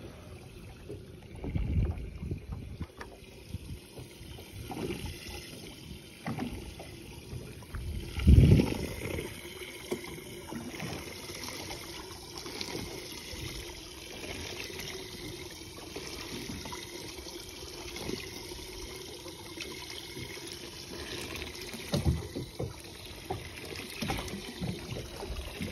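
Water lapping and trickling against the side of a drifting boat, with occasional low thumps; the loudest comes about eight seconds in.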